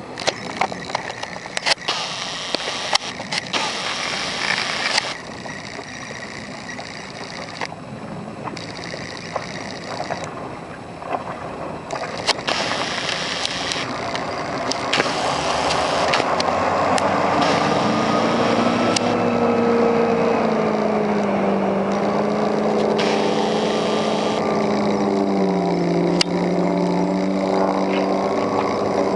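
Four Winns 210 Horizon runabout underway: wind and water rush past with sharp knocks for the first half, then the boat's engine comes up clearly and runs at speed, its pitch rising and dipping with the throttle.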